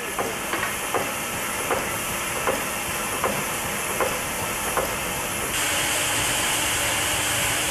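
Standing steam locomotive hissing steam, with soft ticks repeating a little under a second apart. About five and a half seconds in, the sound changes abruptly to a louder, brighter steady hiss.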